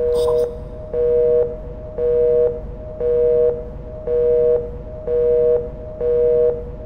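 Telephone busy signal: a two-tone beep, half a second on and half a second off, repeating about once a second.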